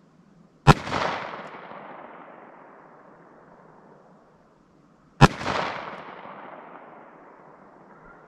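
.45 Colt single-action revolver fired twice, slow aimed shots about four and a half seconds apart. Each sharp report is followed by a long echo that dies away over a few seconds.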